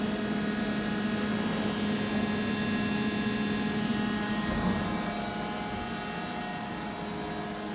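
Gildemeister NEF 600 CNC lathe running: a steady hum with several high, steady whining tones above it, easing off slightly about five seconds in.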